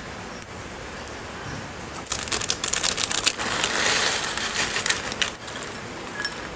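Crushed dry Wai Wai instant noodles pouring from their plastic packet into a glass container: about two seconds in, the packet crinkles and the dry noodle pieces crackle and patter densely for about three seconds.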